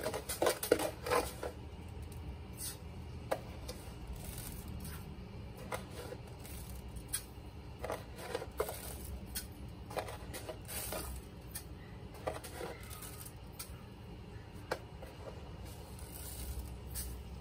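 A tablespoon scooping brown sugar from a container and tipping it into an aluminium cooking pot: light, irregular clicks and taps of the spoon against the container and the pot, over a faint low hum.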